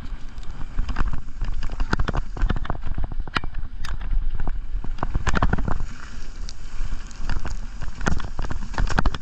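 Mountain bike riding fast down a rough gravel trail: a steady low rumble of tyres over stones, broken by frequent irregular rattles and knocks of the bike jolting over bumps.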